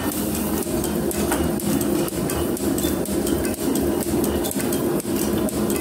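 Metal planer running, its drive humming steadily with repeated metallic clicks and knocks as the table traverses, just as the tool starts to bite on a flame-cut steel bar.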